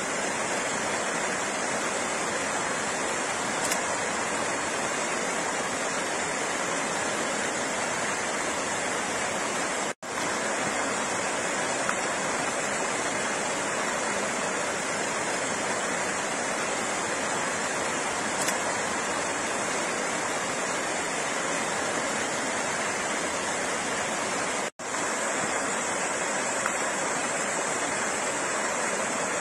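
Steady flowing water, an even rushing noise with no music or voice, cutting out for an instant twice, about ten and twenty-five seconds in.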